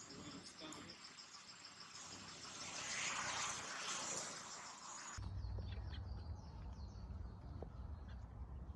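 Insects chirring in rapid, even pulses, with a louder rustling swell around the middle. About five seconds in, the sound cuts abruptly to a steady low rumble with faint scattered ticks.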